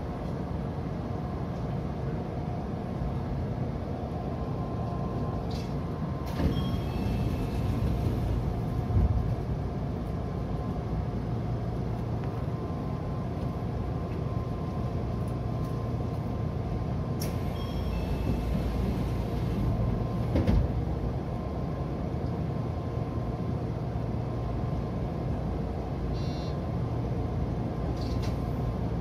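Odakyu 2000-series electric train standing at a platform, heard from inside the cab: a steady low hum from its equipment, with two short hisses of released air about six and seventeen seconds in.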